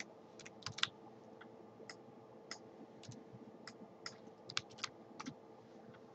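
Computer keyboard typing and mouse clicks, heard as scattered, irregular light clicks over a faint steady hum.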